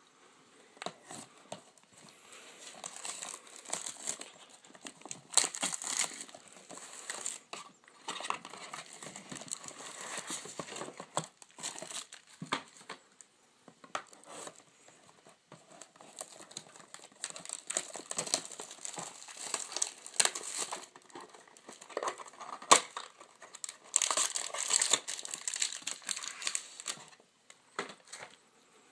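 Plastic wrapping of a box of football trading cards crinkling and tearing as it is opened by hand, in irregular spells, with one sharp snap near the end.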